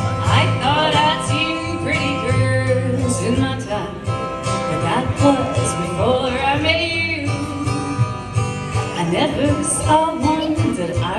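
Live country song: a solo singer with a strummed acoustic guitar, voice and guitar amplified through a PA, the singer holding long, bending notes.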